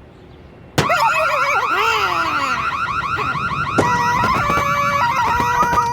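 Loud alarm-like warbling that starts suddenly about a second in: fast, repeated pitch sweeps up and down, joined near the middle by steady held beeping tones.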